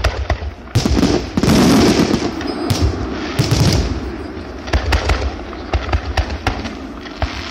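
Fireworks: aerial shells bursting overhead in many sharp bangs and crackles in close succession, heaviest about one to two seconds in.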